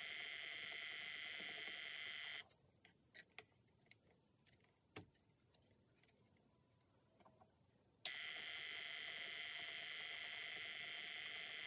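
Electric Eel Wheel Nano 2.0 e-spinner motor and flyer running with a steady, fairly noisy whine. It is switched off about two and a half seconds in, followed by a few light handling clicks. A sharp click at about eight seconds switches it back on and the whine resumes. The owner later traces the extra noise to a front bearing that had not been pushed fully home.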